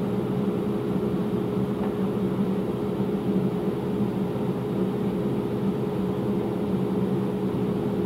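Steady mechanical hum of a running motor or fan, holding one constant pitch.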